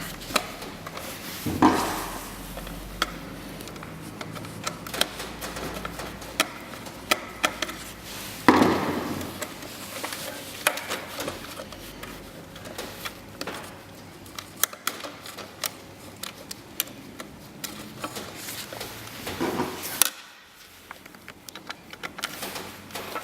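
Scattered light clicks and taps of a screwdriver and small metal parts being handled while temperature control wires are screwed onto the terminals of a heat press's control board, with a few louder brushing scrapes.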